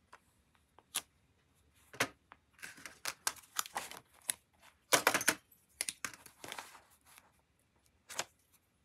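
A plastic lettering stencil and sheets of paper being handled and shifted on a desk, with a pen working over them: rustling and crinkling with light taps and clicks, loudest about five seconds in.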